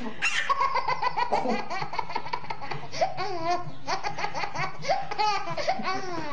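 A baby laughing hard in long runs of quick, high-pitched laughs, the pitch swooping up and down.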